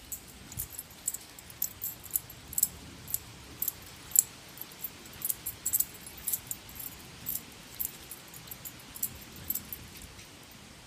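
A dog's metal chain collar jingling in quick, irregular clinks, a few a second, as the dog jerks and tugs on a springpole rope toy; the clinks thin out near the end.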